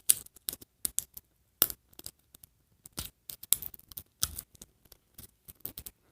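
Plastic packaging of an L.O.L. Surprise Hairvibes toy being tugged and handled at its zip pull-strip, which will not peel open: irregular short crackles and clicks.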